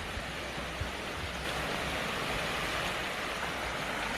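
A valley stream's flowing water makes a steady rush, a little louder from about a second and a half in.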